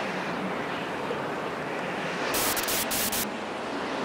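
Steady rushing wind noise, with a louder, brighter hiss that comes in brief bursts from about two and a half to three seconds in.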